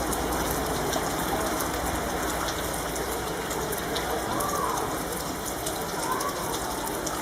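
Steady rain falling, with many small drops pattering on surfaces at an even level throughout.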